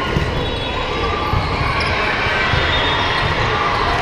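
Volleyball hall din: many balls thudding on the hardwood courts and being struck, over crowd chatter, echoing in a large hall.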